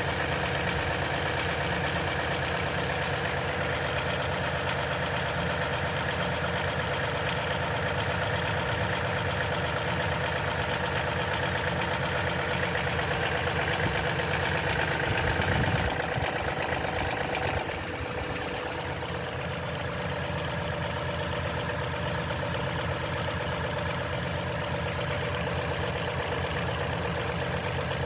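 2010 Toyota Tundra engine idling with a steady rattle, the timing-chain noise heard on a cold start at 165k miles. About two-thirds of the way in the sound drops a little and the rattle softens.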